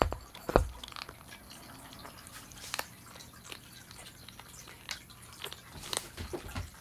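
A food bowl set down on the floor with a knock about half a second in, then kittens eating kibble: small scattered crunches and clicks from chewing and from the bowls.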